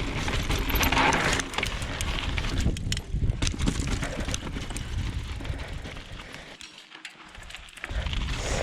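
Mountain bike riding down a dirt trail: wind rumbling over the GoPro's microphone along with the rattle and tyre noise of the ride, easing off briefly about three-quarters of the way through before picking up again.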